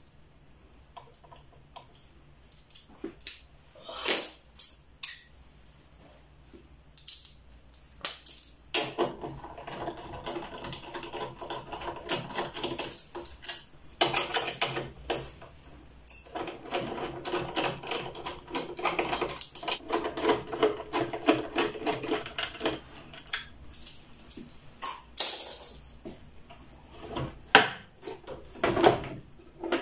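Rapid clicking of a ratchet tool backing out screws from a washer-dryer's metal heater duct, in two long runs from about nine seconds in. Sharp metal clinks of tools and parts come before and after the runs.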